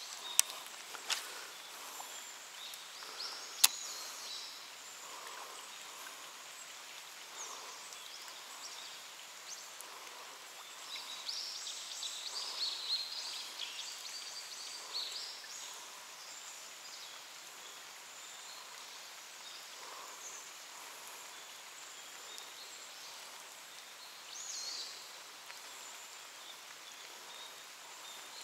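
Quiet outdoor ambience by the water with faint high chirping calls, mostly in the middle and again near the end. Three sharp clicks come in the first few seconds.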